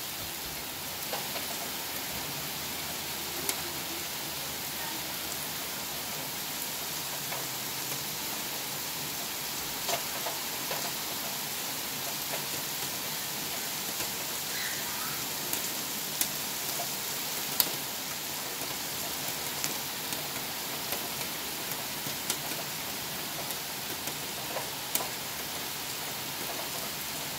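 Heavy rain falling steadily, an even hiss of rain on grass and pavement, with a few sharp, louder drop hits now and then.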